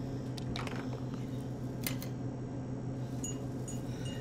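Eerie film sound: a steady low hum, a few sharp clicks in the first two seconds, then a quick run of short, high pings about two or three a second near the end.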